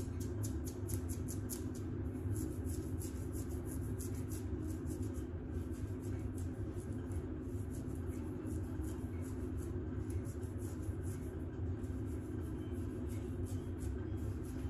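Long acrylic press-on fingernails scratching a flaky scalp through curly hair: rapid short scratching strokes, about five or six a second, easing off for a moment midway.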